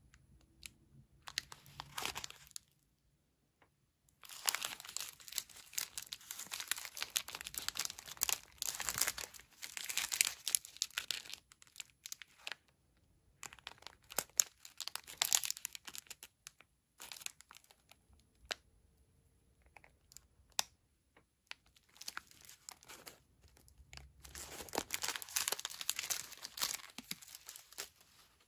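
Crinkling of a plastic cereal-bar wrapper being handled and turned over in the fingers, in several spells with short pauses between.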